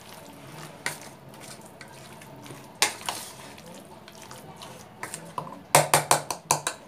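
Metal spoon scraping and clinking against a stainless steel bowl while thick marinated mutton is stirred; a few scattered clinks, then a quick run of louder clinks near the end.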